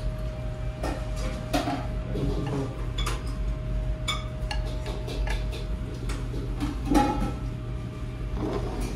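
Tableware clinking: porcelain soup spoons, chopsticks and small ceramic sauce dishes knocking against bowls and plates in scattered light taps, over a steady background hum.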